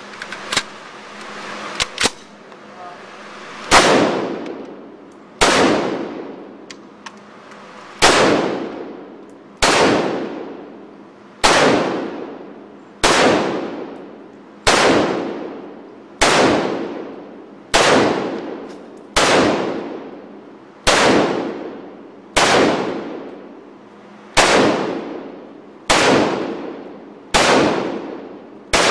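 A Sig 556 rifle in 5.56 mm fired in slow, single semi-automatic shots, about one every second and a half, some sixteen in all, starting about four seconds in after a few light handling clicks. Each shot rings and echoes off the walls of an indoor range.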